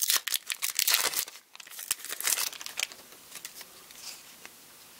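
Foil wrapper of a Pokémon booster pack crinkling and tearing as it is ripped open by hand: a dense run of crackles that dies down after about two and a half seconds to quieter rustling as the cards are handled.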